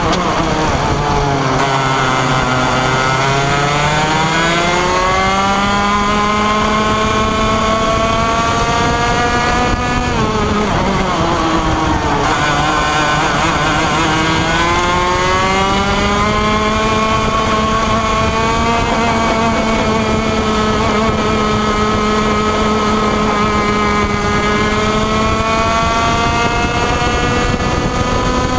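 125cc two-stroke TaG racing kart engine, heard from onboard at racing speed. Its pitch falls as it comes off throttle at the start, climbs steadily under power, dips sharply again about ten seconds in, then climbs slowly through the rest.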